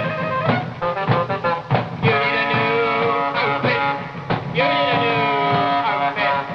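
Rock band music: long held notes, some sliding down in pitch, over drum hits.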